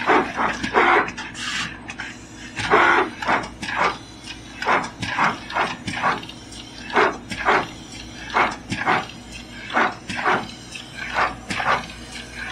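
An SMT pick-and-place machine at work: its placement head and gantry servos whir and whine in quick, irregular bursts, one or two a second, over a steady machine hum, as the head shuttles between the tape feeders and the board.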